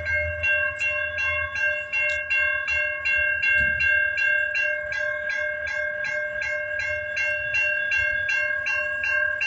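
Railroad crossing bell ringing steadily, about three strikes a second, over the low rumble of a freight train rolling through.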